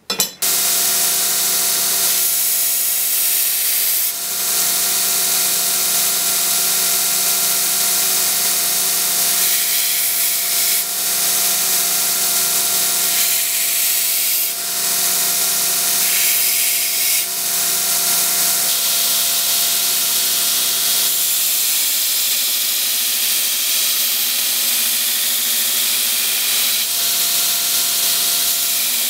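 Belt grinder running with a well-worn abrasive belt, a steel knife blank pressed against it to take the sharp edge off: a steady hiss of steel on the belt over the motor's hum, the hiss shifting every few seconds as the blade is moved and repositioned.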